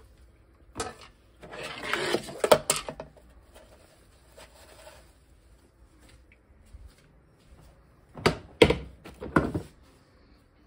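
Dishes, a spatula and a plastic bowl being handled and set down, with clattering and rustling in a few short bursts and sharp knocks about two to three seconds in and again near the end.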